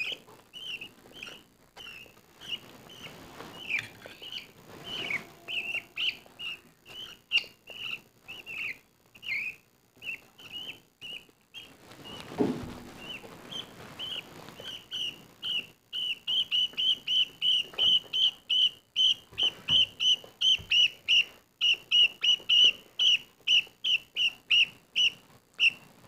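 Baby budgerigar chicks, about two to three weeks old, giving short high begging chirps while being spoon-fed. The chirps are scattered at first, then run fast and even at about three to four a second through the second half.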